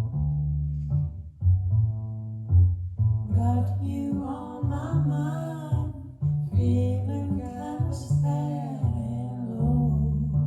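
Recorded music playing over B&W 802 Nautilus hi-fi loudspeakers in a room: a deep plucked bass line, with a singing voice coming in about three seconds in and dropping out shortly before the end.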